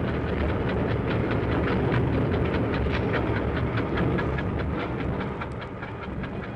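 Diesel-electric locomotive running at speed, heard from the cab: a steady low rumble with a rapid, even clicking of wheels over the rail joints.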